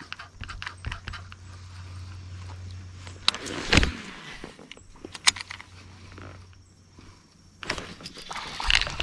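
Baitcasting reel and rod being handled in a kayak: scattered light clicks and rattles, with louder knocks about four seconds in and again near the end.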